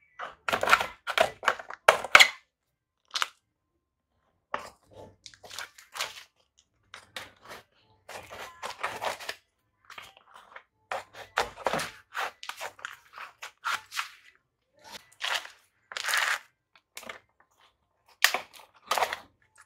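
Garden soil and roots in a pot being worked by hand: irregular crunching and scraping, loudest about two seconds in and again near the end.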